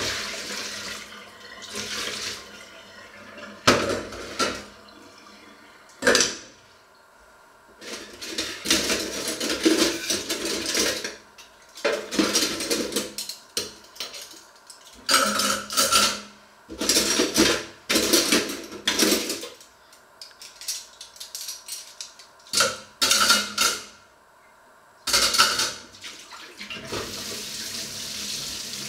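Dishes being washed by hand at a kitchen sink: tap water running on and off, with clinks and clatters of metal bowls, pots and cutlery being handled and rinsed, and a few sharp knocks.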